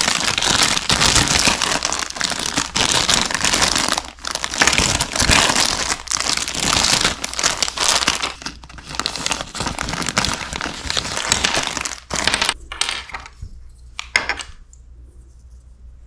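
Clear plastic bags crinkling and crackling as they are handled and opened for about twelve seconds, then a few light clicks as small plastic miniature pieces are set down on a wooden table.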